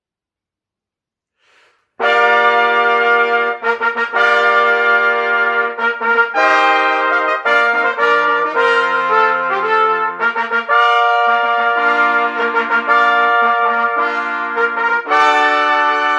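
An ensemble of six trumpets plays a fanfare in harmony. It begins suddenly about two seconds in with loud held chords, and clusters of short, quick notes come near the middle and again near the end.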